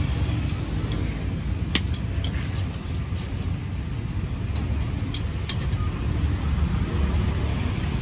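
Busy city street ambience: a steady low rumble of passing traffic, with a handful of sharp clicks or clatters, the loudest about two seconds in.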